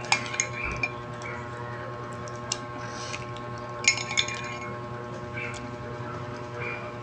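Metal spoon clinking and scraping against a ceramic mug as mashed avocado is stirred and scooped. There are a few sharp clinks near the start, a cluster of them about four seconds in, and single clinks in between.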